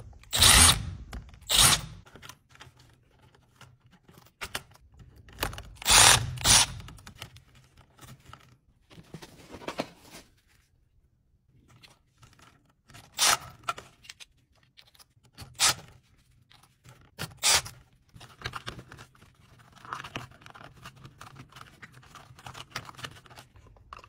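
Milwaukee M12 Fuel cordless driver spinning a wire stripping and twisting socket on stripped wire ends in short bursts a few seconds apart, about seven in all, with wire and glove handling noise between them.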